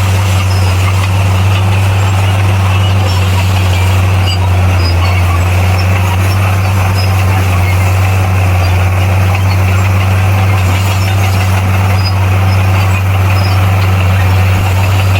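Heavy diesel engine of a bulldozer running steadily under work, a deep constant hum with rough mechanical noise over it and no change in pitch.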